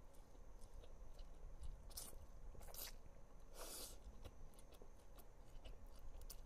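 Close-up eating sounds of a mouthful of thick ramen noodles: quiet chewing with small wet mouth clicks, and a few louder, brief mouth noises about two, three and three and a half seconds in.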